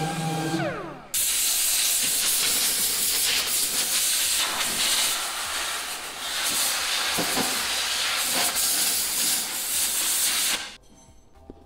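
A power tool's motor whines down in pitch and stops. Then a loud, steady hiss of compressed air starts abruptly, runs for about nine seconds and cuts off suddenly.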